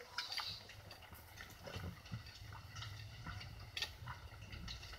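Faint shuffling footsteps and small clicks and rustles of passengers moving along a train aisle, over a steady low hum from the railcar.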